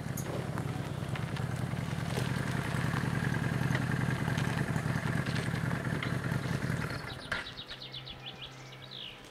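Cruiser motorcycle engine running steadily as the bike pulls up and sits, then shut off about seven seconds in. A few light clicks follow.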